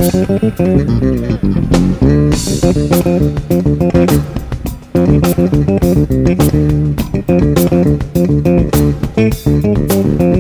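Background music: a track led by bass guitar and guitar over a steady beat.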